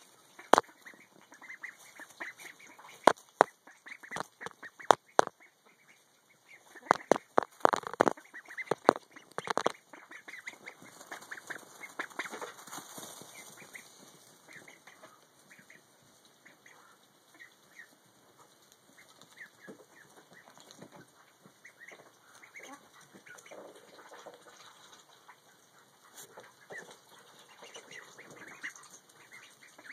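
Ducklings calling in short chirps, busiest a few seconds before the middle and thinning out later. In the first ten seconds a run of sharp knocks or taps stands out as the loudest sounds.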